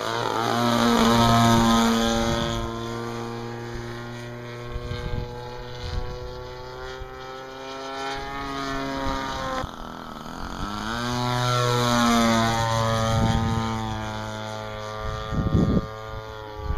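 Radio-controlled aerobatic model plane's propeller engine running through a flying display. Its pitch and loudness rise and fall as it passes by, loudest about a second in and again around twelve seconds.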